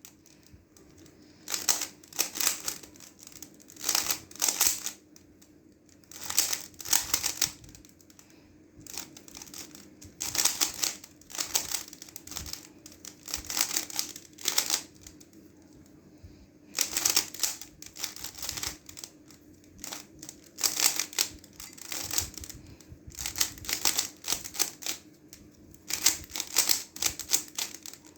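Plastic layers of a stickerless 3x3 speed cube clicking and rattling as they are turned by hand, in quick flurries of turns about a second long with short pauses between.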